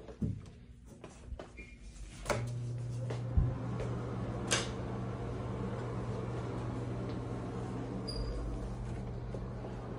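Restroom door latch and knob clicking as the door opens. About two seconds in, a sharp click is followed by a steady low hum that starts and runs on, with a thud and another click soon after.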